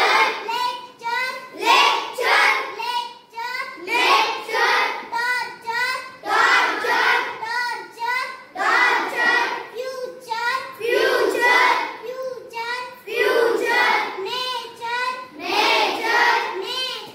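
A child's voice chanting words aloud in a sing-song way, in short repeated phrases about every one to two seconds.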